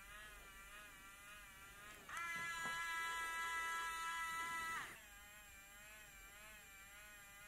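A Geeetech 3D pen's small filament-feed motor whining faintly as it extrudes plastic, a high buzz that wavers slightly in pitch. About two seconds in it jumps with a click to a louder, steady whine for about two and a half seconds, then drops back to the softer buzz.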